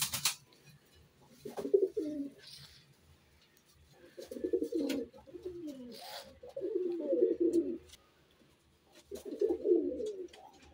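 Fantail pigeons cooing in about four separate bouts a couple of seconds apart, with a brief flutter of wings at the very start.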